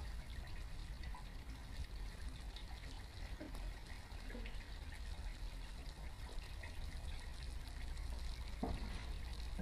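Lithium polymer battery pack burning in a metal fire tray: a steady rushing hiss of flames with scattered faint crackles, over a steady low rumble.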